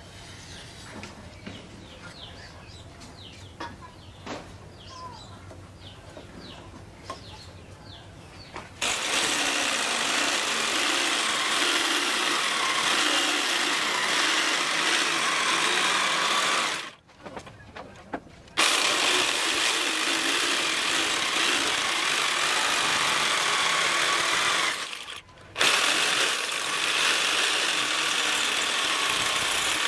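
An electric jigsaw cuts through a wooden board in three long runs, with short stops between them. Before that come about nine quieter seconds with a few light clicks.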